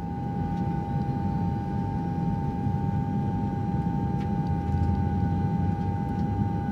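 Jet airliner cabin noise in flight: a steady low rumble from the turbofan engines with a constant whine on top.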